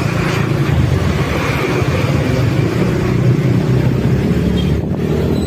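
Motorcycle engine running steadily during a ride, under a rushing hiss of wind and road noise.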